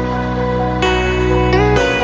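Background music: sustained pitched notes that change about a second in and again near the end.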